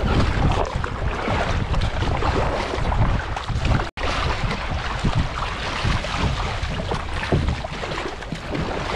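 Double-bladed paddle dipping and splashing as a kayak is paddled through choppy sea, with water slapping the hull and wind buffeting the microphone. The sound cuts out for an instant about four seconds in.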